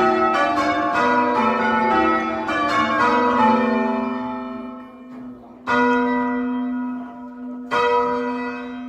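Ring of six church bells in change ringing: a quick, even run of overlapping strokes that thins and stops about four seconds in. Two more single loud bell strokes follow near the end, each humming on and fading away.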